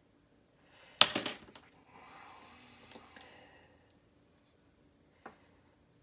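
Steel tweezers clicking against a small plastic model part: one sharp click about a second in, then a few lighter clicks. After that comes a soft hiss lasting a second or so, and a faint tick near the end.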